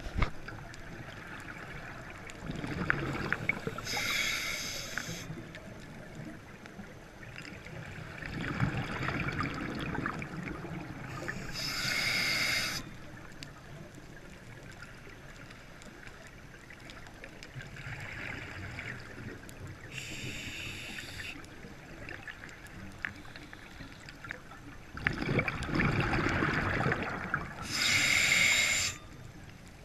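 Scuba diver breathing underwater through a regulator: a low bubbling rumble of exhaled air, then a short hiss as the next breath is drawn. The cycle repeats four times, about every eight seconds.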